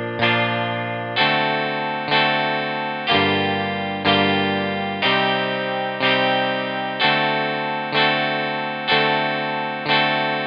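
GarageBand Smart Guitar, Classic Clean electric guitar with chorus and echo pedals, strumming one chord about every second, each ringing and fading before the next. The chords step slowly through B♭, D7, Gm7, Cm and D7.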